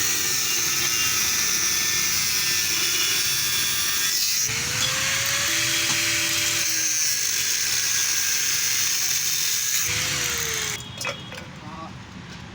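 Power tool, an angle grinder, cutting into the steel shell of a refrigerator compressor: a steady harsh grinding hiss with a motor tone that rises and sags as the load changes. It stops sharply near the end, leaving a few faint clinks.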